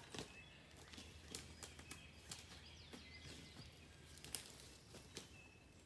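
Quiet woods: faint scattered rustles and sharp clicks in dry leaf litter and twigs, with a few faint, brief bird chirps.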